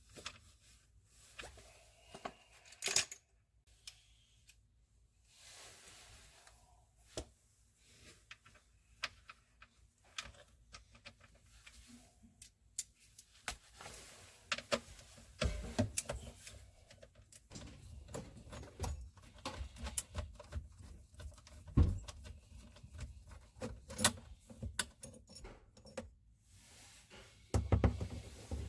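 Tools and parts being handled while working on a garbage disposal: irregular clicks, light rattles and a few dull thuds.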